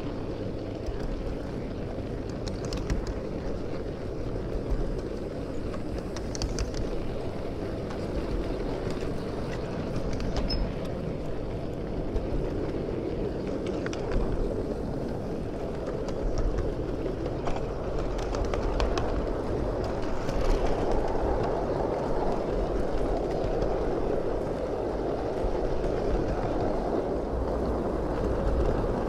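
Ride-on miniature live-steam train rolling along its track: a steady rumble of wheels on rail with scattered sharp clicks, growing somewhat louder about two-thirds of the way through.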